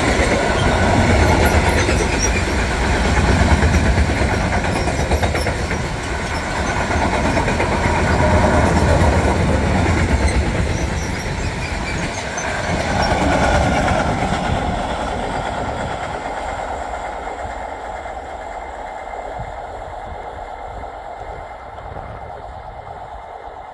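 Freight train of covered sliding-wall wagons rolling past, wheels running on the rails with a deep rumble. About 14 seconds in the last wagon goes by and the noise fades steadily as the train moves away.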